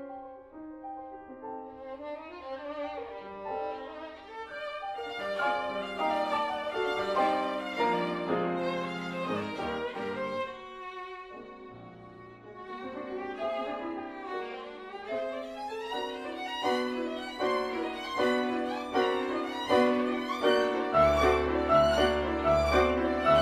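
Instrumental background music: a melody of quick notes that dips briefly midway, then grows louder near the end.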